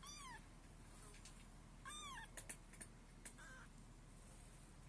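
A black kitten of nearly three weeks mewing in high, thin cries: two arching mews about two seconds apart, then a shorter one. A few soft clicks fall between the second and third mews.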